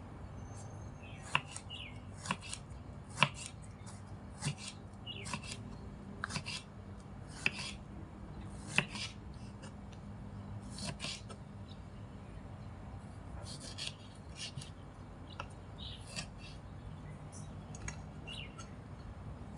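Kitchen knife slicing a tomato on a wooden cutting board: irregular knocks of the blade on the board, with short scraping strokes, a few each second and thinning out after the middle.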